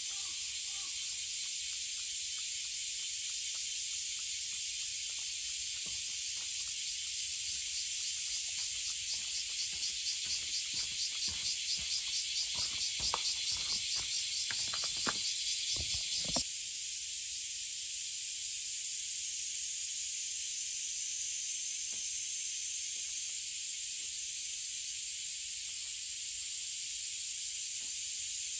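Steady summer chorus of cicadas. A nearby cicada's pulsing call builds louder from about a quarter of the way in and cuts off suddenly just past the middle.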